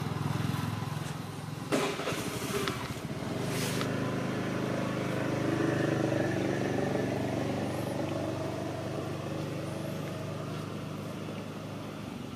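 A motor vehicle engine running steadily nearby, a low even hum, with two short knocks about two and four seconds in.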